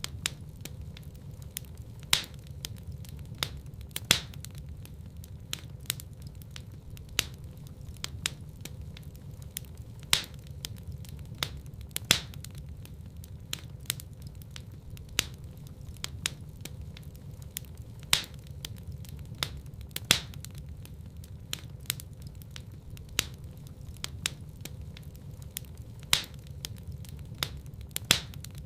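Fire in a fireplace crackling: many sharp pops and snaps, a few of them much louder than the rest, over a steady low rumble of the flames.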